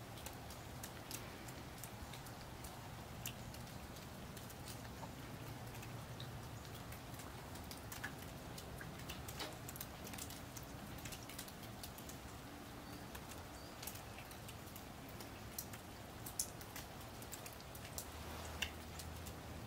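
Light snow pattering outdoors: a faint, steady hiss with many small, irregular ticks throughout.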